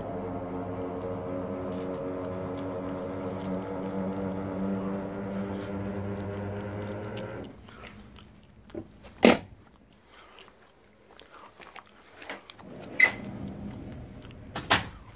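Electric motor of a hearse's powered coffin deck running steadily with a constant hum for about seven and a half seconds after its up/down button is pressed, then stopping. Afterwards several sharp knocks and clicks follow, the loudest about nine seconds in and two more near the end.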